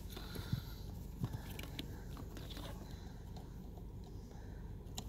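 Faint scattered clicks and small handling noises of test leads and back-probe clips being pushed into a car wiring connector, with one sharper click near the end, over a steady low hum.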